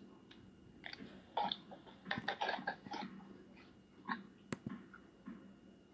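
Faint, scattered small handling noises from a phone being moved about, with one sharp click about four and a half seconds in.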